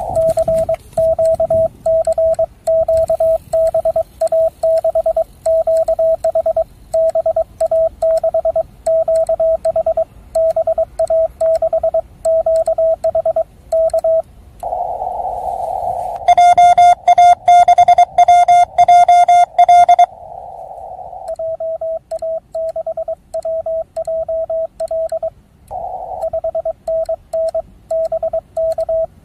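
Morse code (CW) from an amateur radio transceiver on the 6 m band: a steady mid-pitched tone keyed on and off in dots and dashes as a station's signal is received and copied. Short rushes of receiver hiss come between transmissions, and from about 16 to 20 seconds in the tone is louder and buzzier.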